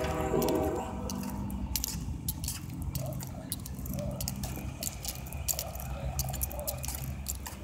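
A freight train's diesel locomotives running with a low, steady rumble as they approach. The horn cuts off just after the start, and many sharp clicks and crackles lie over the rumble.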